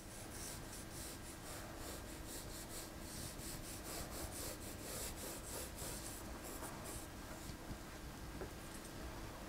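Pencil scratching lightly across paper on an easel in quick, short sketching strokes, several a second, faint, stopping about three-quarters of the way through.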